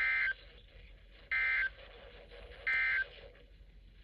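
Emergency Alert System end-of-message data tones: three short, harsh two-tone buzzes about 1.3 s apart, signalling the end of the alert, over faint broadcast hiss.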